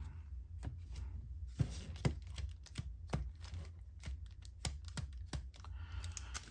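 Light, irregular clicks and taps, roughly two a second, of cardboard trading cards being handled and set down on a wooden tabletop.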